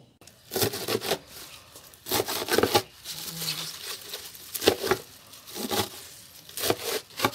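A large knife chopping leafy greens against a black plastic lid, a sharp chop every second or so with the leaves rustling between strokes; vegetable scraps being cut up for composting.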